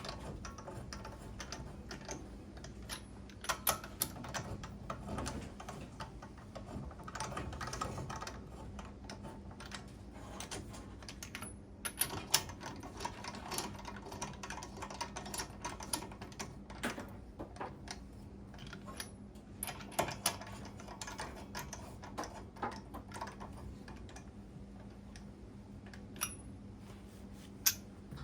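Irregular clicks and clinks of hand tools and metal parts being handled during brake work, over a steady low hum.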